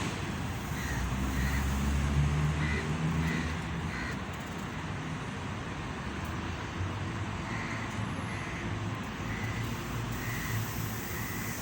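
Road traffic: a vehicle engine humming for the first few seconds, then steady traffic noise. Short high chirps repeat through it about once or twice a second.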